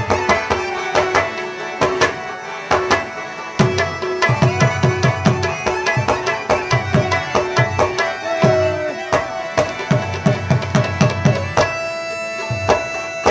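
Instrumental Pashto folk music: tabla drums playing a fast, busy rhythm over held harmonium notes, with a plucked rabab.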